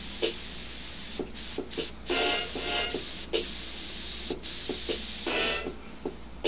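Airbrush spraying thinned acrylic paint: a steady hiss of air and paint that cuts off briefly several times as the trigger is let go, then fades out about five seconds in.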